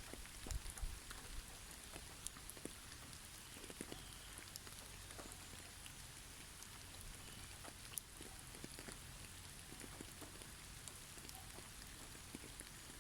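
Faint snowfall in a forest: a steady soft hiss with scattered light ticks and pats of snow landing on branches, and a brief low rumble about a second in.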